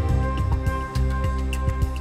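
Background music with deep bass notes and light percussive ticks.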